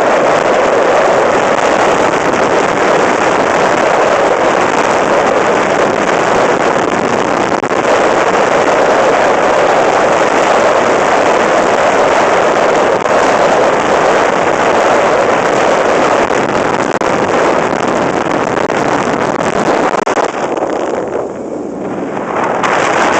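Steady, loud rush of wind on the microphone and runners scraping over lake ice as an iceboat sails at speed, easing briefly near the end.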